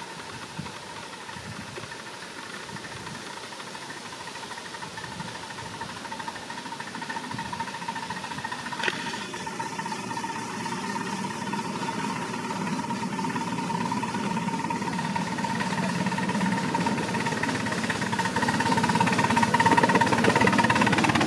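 A 5-inch gauge miniature steam locomotive hauling riding cars approaches and passes, its running sound growing steadily louder. There is a single sharp click about nine seconds in.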